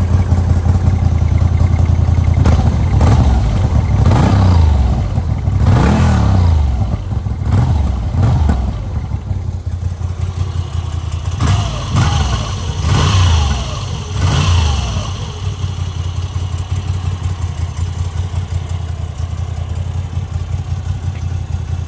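Moto Guzzi V85 TT's 853 cc air-cooled transverse 90° V-twin idling, blipped several times in quick succession in the first third and again around the middle, each rev dropping back to idle. It then settles into a steady idle.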